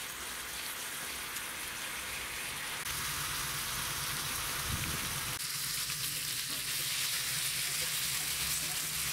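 Strips of breakfast bacon sizzling in a hot cast-iron skillet as their fat renders out, a steady crackle that grows slowly louder.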